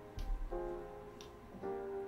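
Background music: piano chords struck about once a second, each ringing out and fading, with a brief low thump about a quarter second in.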